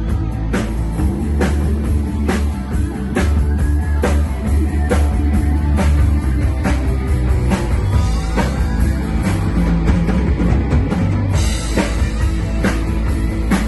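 Rock band playing an instrumental break without vocals: a drum kit keeps a steady beat under bass and electric guitar, with a lead guitar bending notes. The cymbals get brighter near the end.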